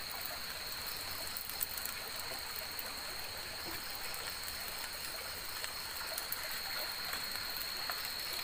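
Night forest ambience: a steady high insect drone over an even hiss, with scattered small crackles.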